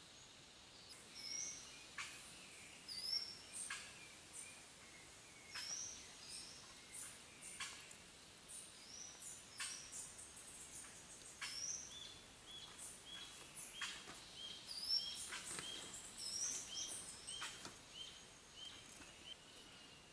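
Forest birds calling: short high chirps and whistled notes, some falling in pitch, with a run of quick repeated notes in the second half.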